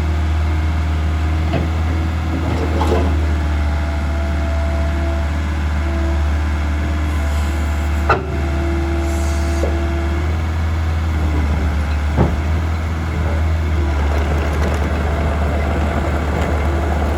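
Diesel engine of a 2006 Bobcat 442 excavator running steadily with a deep rumble. Two short sharp knocks come about eight and twelve seconds in.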